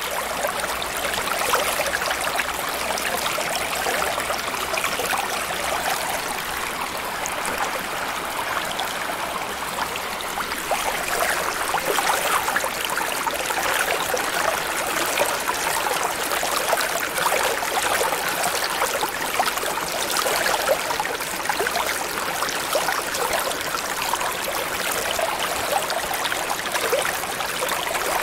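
Steady underwater-style water ambience: continuous flowing, bubbling water with a fine crackling texture and a faint low hum underneath.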